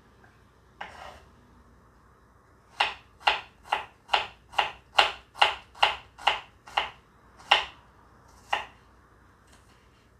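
Kitchen knife slicing a red onion on a wooden cutting board: a run of about a dozen crisp knocks of the blade through the onion onto the board, a little over two a second, with a single cut before and after the run.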